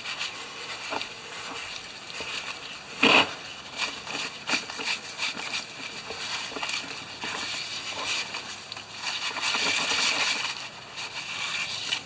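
Cloth rag rubbing and wiping over a small rubber lawnmower tire, a scratchy scuffing that comes in spells and thickens near the end. There is one sharp knock about three seconds in.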